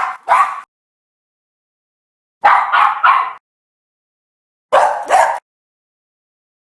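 Dog barking sound effect: three short clips of sharp barks, two barks, then three, then two, each set cut off into dead silence.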